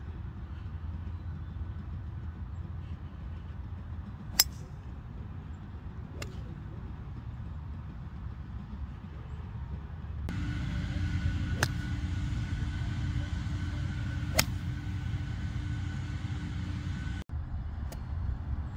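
Golf club striking the ball off a grass tee: several short sharp clicks a few seconds apart, the loudest about four seconds in, over a steady low outdoor rumble.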